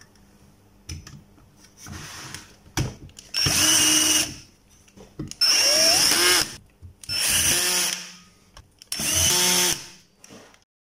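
Power screwdriver running in four short runs of about a second each, its pitch shifting during each run as it drives screws into the inverter welder's metal chassis.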